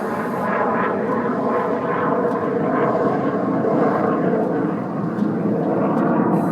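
Steady road and tyre noise inside a moving car's cabin.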